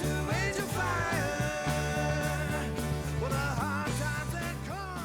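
Outro music: a rock song with a steady bass line and a wavering vocal-like melody, fading out near the end.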